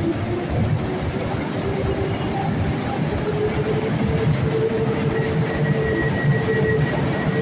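PKP Intercity EP09 electric locomotive pulling away from a standstill with its passenger train, over a steady rumble. A single whine from the locomotive climbs slowly in pitch as it gathers speed, and a fainter, higher whine joins about five seconds in.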